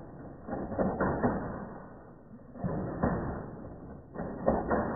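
Nerf dart blaster firing, slowed down, in three bursts of sharp clicks about two seconds apart.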